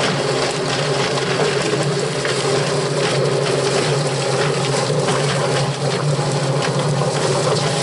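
Yardbird drum chicken plucker running steadily, tumbling a scalded chicken against its rubber fingers to strip the feathers, with a steady hum. A garden hose sprays water into the drum over it, adding a constant hiss.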